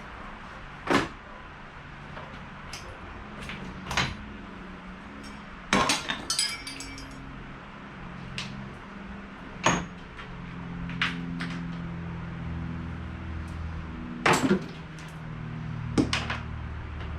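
Scattered knocks and clanks of tools and parts being handled and set down in a garage, with a short burst of ringing metallic clinks about six seconds in, over a low background hum.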